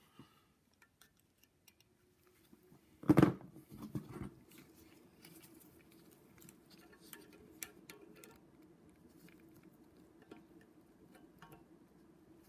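Small metallic clicks and taps of hand tools working on a valve spring compressor set on an aluminium cylinder head, with one loud knock about three seconds in followed by a few smaller knocks. A faint steady low hum carries on after the knock.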